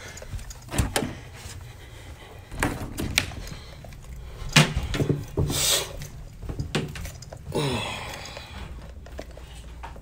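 Scattered knocks and thumps of a person moving about with an upright vacuum and its cord, the vacuum's motor not running, with a short hiss in the middle and a brief falling tone near the end.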